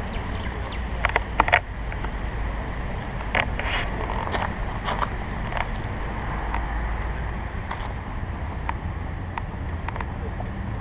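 A steady low rumble with scattered sharp clanks and knocks, the loudest a little over a second in, as of a small train running.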